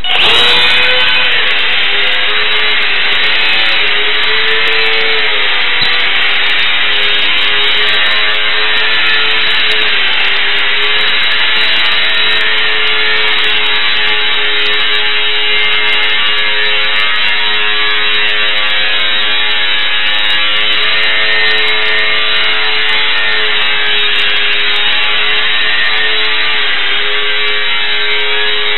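Small electric motor and propeller running steadily close to the microphone: a constant buzzing whine whose pitch wavers slightly as the throttle changes.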